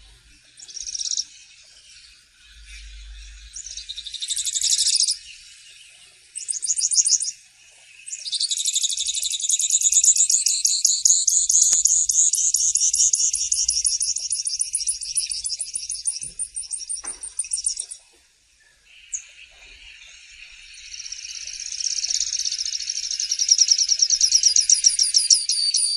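Canário-tipio (grassland yellow-finch) singing. A few short high phrases come first, then a long, fast, high trill of rapidly repeated notes lasting about ten seconds. After a brief pause a second long trill builds up near the end.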